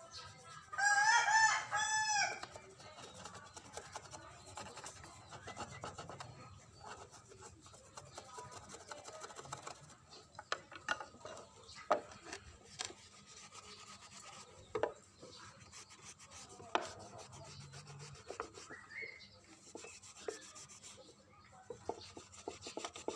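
A rooster crows once, about a second in; it is the loudest sound. Then come quieter rubbing and scraping strokes with scattered light clicks and taps, as of hand work on a workpiece.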